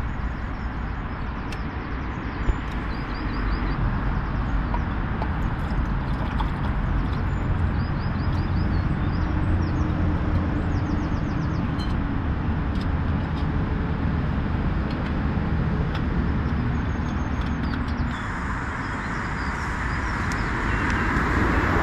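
Steady roar of busy main-road traffic, swelling slightly near the end, with a few short bird chirps above it.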